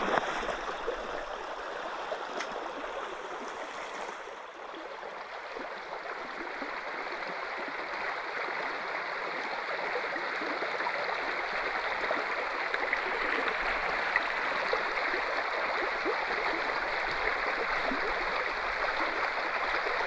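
Low, shallow creek running over a rocky riffle: a steady rush of moving water that grows a little louder after the first few seconds.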